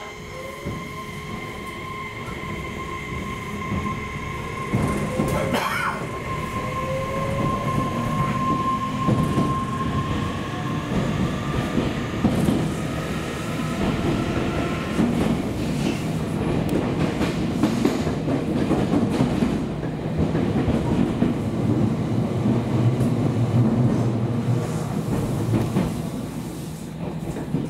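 JR Kyushu 811 series electric train's VVVF inverter drive accelerating, heard from inside the motor car: a whine that rises in pitch over the first several seconds, under a rumble of wheels on rail that grows louder as speed builds.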